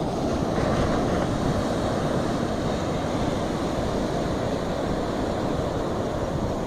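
Sea waves breaking on a sandy beach: a steady rush of surf that swells a little about half a second in, with wind rumbling on the microphone.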